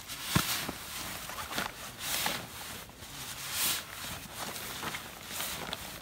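A nylon sleeping bag and its stuff sack rustling in repeated swishes every second or two as the rolled bag is pressed down and pushed into the sack, with a sharp knock about half a second in.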